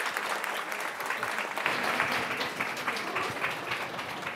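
Audience applauding, many hands clapping at once, fading slightly near the end.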